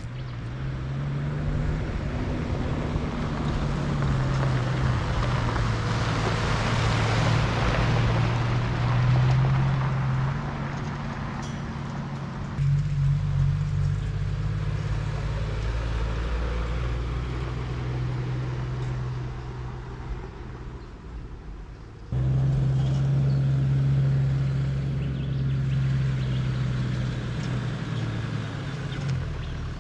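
Toyota Land Cruiser Troopcarrier driving, with a steady engine hum under road and tyre noise. The sound changes abruptly twice, about twelve and twenty-two seconds in.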